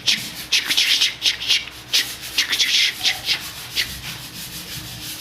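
Drywall joint compound being sanded by hand in steady rhythmic strokes, about three scraping hisses a second, a 'shush, shush' rhythm. The strokes grow fainter and sparser near the end.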